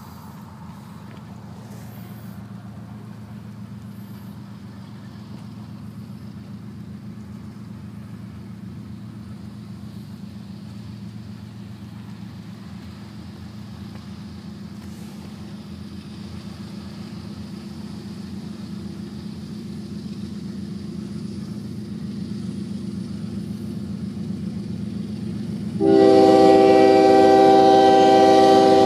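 Approaching Union Pacific ES44AC (AC45CCTE) diesel-electric locomotive rumbling steadily and growing louder, with heavy rain falling. About 26 seconds in its air horn sounds one long, loud blast, the loudest sound here.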